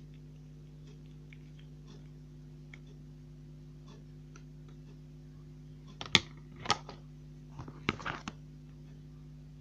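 Slime being squeezed and poked by hand, giving scattered faint clicks and then a few loud sticky pops and crackles about six to eight seconds in, over a steady low electrical hum.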